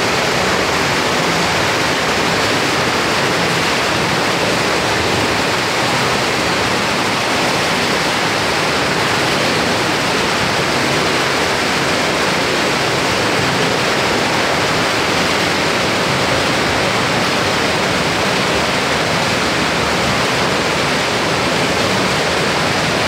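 Spa pool water jets churning the water: a steady, loud rush of water that does not let up.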